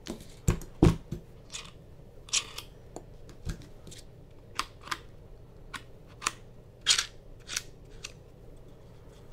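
Plastic-and-metal clicks and knocks of a camera rig and its small field monitor being handled and adjusted on the monitor mount, with a few heavier thumps about half a second to a second in and scattered single clicks after.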